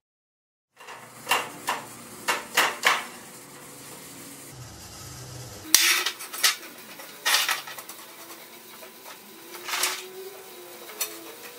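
Square steel tube clanking and scraping on a steel table top and against the steel clamp frame as it is handled. A quick run of sharp metal clinks and knocks comes first, then a few longer scraping clanks.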